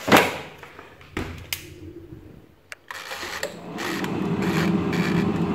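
Black+Decker air fryer: the basket is pushed shut with a sharp clunk, the timer dial clicks a few times as it is turned, and about four seconds in the fan starts, running with a steady whir.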